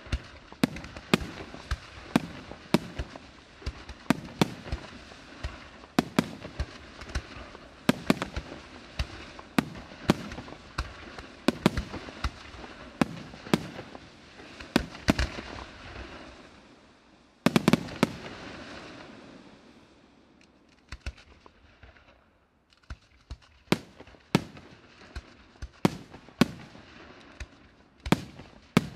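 Aerial firework shells bursting in quick succession: a steady run of sharp bangs with crackling between them. About two-thirds of the way through a few very loud bangs come together, then a fading crackle and a brief lull before the bursts pick up again near the end.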